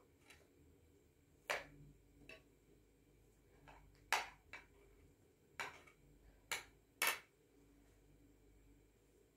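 A spoon clinking against a plate during a meal: about seven sharp, separate clicks at uneven intervals, the loudest a little over halfway through.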